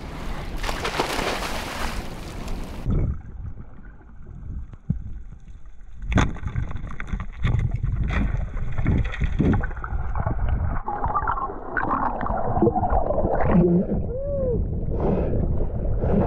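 Wind and water splashing at the surface. About three seconds in, the sound suddenly turns muffled as the camera goes under, and underwater gurgling, bubbles and scattered knocks follow while a snorkeler dives with a pole spear.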